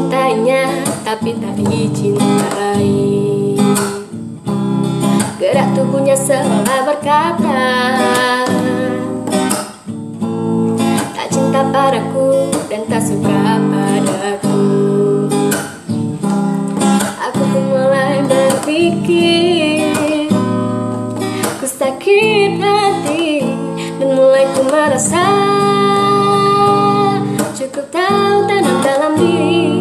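A young woman singing a song to her own strummed acoustic guitar.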